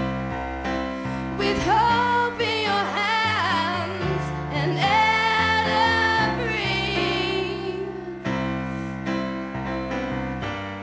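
Live solo song on a Yamaha electric keyboard with a piano sound, playing steady chords. A female voice sings long, wavering held notes from about two seconds in until about eight seconds in, and the keyboard then carries on alone.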